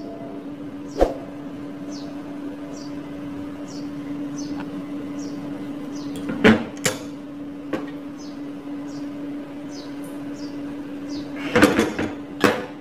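A metal spoon and glass jar giving sharp clinks and knocks against dishes and a steel counter: a few single knocks, then a cluster of clinks near the end. Under them are a steady low hum and a faint high chirp repeating about twice a second.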